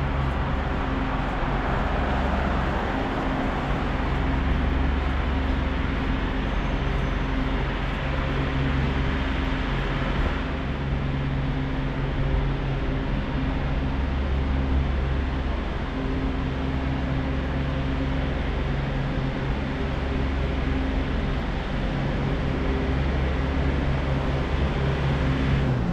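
Steady low hum and rumble of city street traffic, with vehicle engines running.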